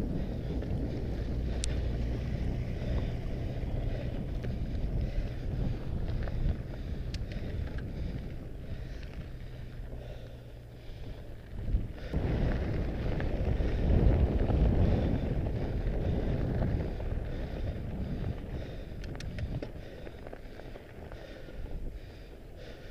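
Wind rushing over an action camera's microphone on a moving Mondraker Panzer fat bike, mixed with the low rumble of its fat tyres rolling over stony ground and gravel. About halfway through it grows louder for a few seconds, then eases.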